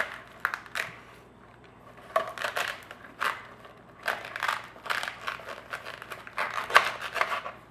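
Serrated knife sawing through the husk and cob of an ear of corn: a series of uneven crunching, crackling strokes with short pauses between them, the sharpest one near the end.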